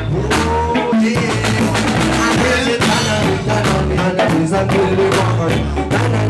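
Live band playing loud music: drum kit beating a steady rhythm under electric guitar and a repeating bass line.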